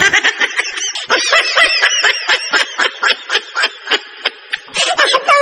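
Laughing sound effect: rapid, high-pitched snickering giggles, about five a second.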